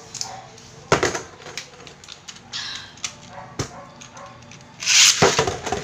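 Scattered clicks of plastic Beyblade parts being handled, then about five seconds in a sudden loud zip of a ripcord launch as the spinning tops drop into the plastic stadium, followed by a few clattering clicks.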